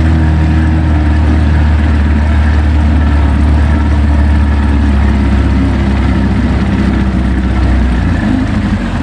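Electric trolling motor driving a small jon boat with a steady low hum, mixed with water and wind noise. The hum eases off about eight seconds in.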